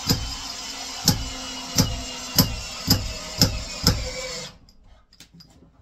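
Cordless drill driving a long wood screw into a timber bed post: the motor whines steadily, with a sharp knock every half second or so as the screw goes in. The drill stops suddenly about four and a half seconds in.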